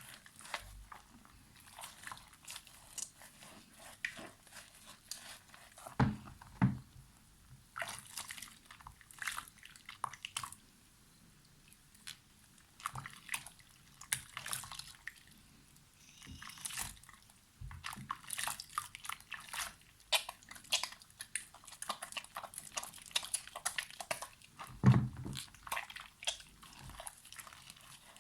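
Dry soap crunching and crackling as it is cut and crushed, in irregular runs of short crisp strokes with brief pauses, and two heavier thumps, about six seconds in and near the end.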